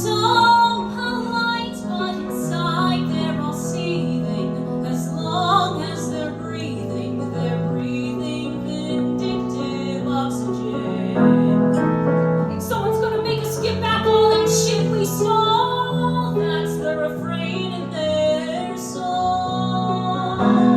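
Piano accompaniment to a musical-theatre song, with a voice singing a melody over it.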